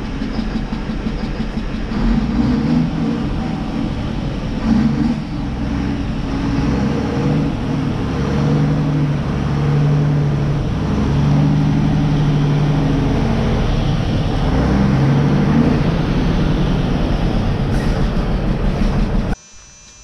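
Mack big-rig diesel engine running as the truck pulls in, with a rough, uneven beat from a miss on cylinder number five, which is starved of fuel by a loose EPU injector pipe. The sound cuts off suddenly near the end.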